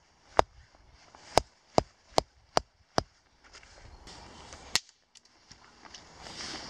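Wooden carver's mallet striking the head of a carved wooden tent peg to drive it into the ground: seven sharp wooden knocks, one about half a second in, then five at an even beat of about two and a half a second, and a last one almost five seconds in.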